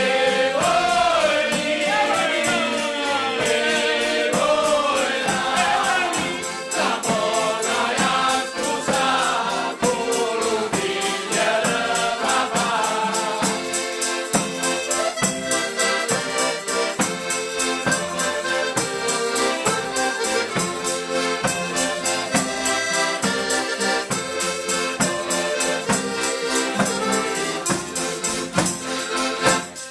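Southern Italian folk carnival song: a group of voices singing in chorus over a piano accordion with guitar and a tambourine-like frame drum keeping a steady beat. The singing drops out about halfway through and the accordion carries an instrumental passage over the rhythm.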